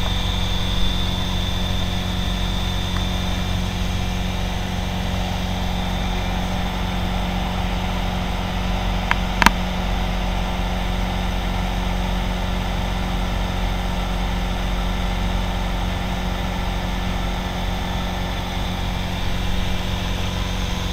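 Moragon M-1 light aircraft's piston engine and propeller running steadily, heard from inside the cockpit in flight. A single sharp click about nine and a half seconds in.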